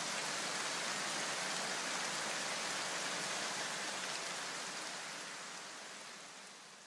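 Steady, even hiss with no distinct events, fading out over the last two seconds or so.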